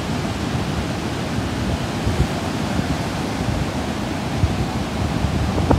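Steady rush of ocean surf breaking on a beach, mixed with wind, with a brief knock near the end.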